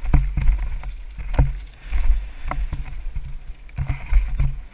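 Downhill mountain bike descending a rough forest trail, heard from a helmet-mounted camera: a steady wind rumble on the microphone with irregular clattering knocks and rattles from the bike over bumps and roots, the sharpest about a second and a half and two and a half seconds in.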